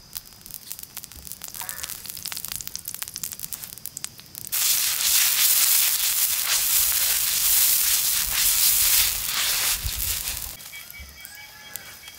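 Sesame oil crackling and popping on a large hot iron griddle over a wood fire, then a sudden loud, steady sizzle from about four and a half seconds in as the oil is swept across the plate with a stick broom, dying down near the end.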